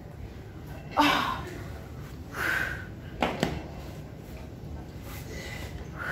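A dumbbell being taken off a metal dumbbell rack. There is a thump about a second in, a short breathy noise, then a sharp clank a little over three seconds in as the weight comes off the rack.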